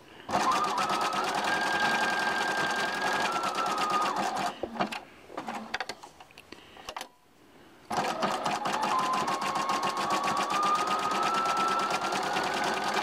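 Bernina sewing machine stitching a tight zigzag: a fast, even patter of needle strokes over a motor whine. It runs for about four seconds, stops for about four, then starts again, its whine slowly rising in pitch as it speeds up.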